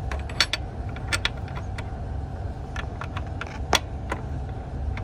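Sharp metal clicks and clinks of a wrench being worked onto a hex bolt head on a Brunswick A-2 pinsetter's scissor joint. The loudest come about half a second, one second and just under four seconds in, over a steady low hum.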